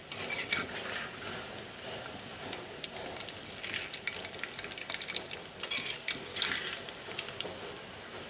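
Pumpkin pakoras deep-frying in hot oil: a steady sizzle with spattering crackles that flare up every second or two.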